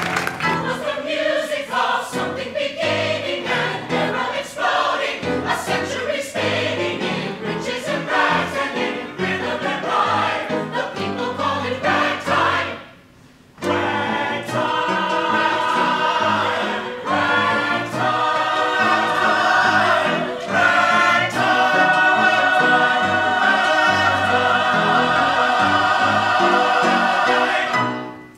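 Musical theatre ensemble singing together in chorus. The singing breaks off briefly about halfway through, then comes back in long held notes that swell toward the end before stopping.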